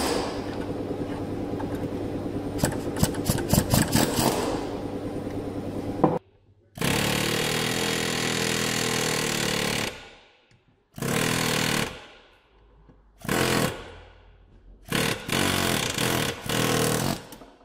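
Ingersoll Rand 114GQC air hammer with a punch tip hammering an old, corroded bush out of a suspension arm. It runs continuously for about six seconds, then in one burst of about three seconds and several shorter bursts with short pauses between them.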